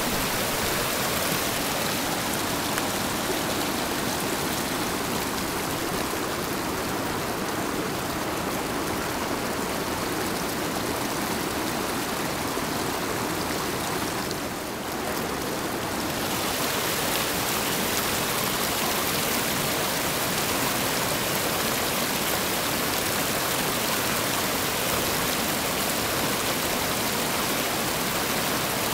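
Whitewater rapids rushing over rocks: a steady, full rush of water that dips briefly about halfway through.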